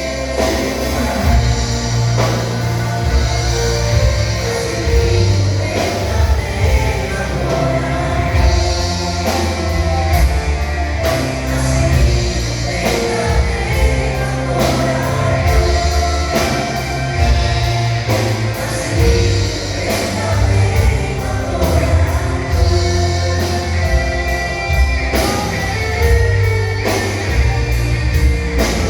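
A vocal group singing a church worship song over a loud live band with drums and a heavy low end.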